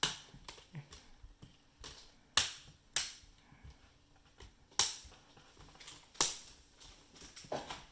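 Plastic screen bezel of an Asus VivoBook S laptop snapping onto the display lid as it is pressed into place: a series of sharp clicks, four of them loud, as its clips catch one after another.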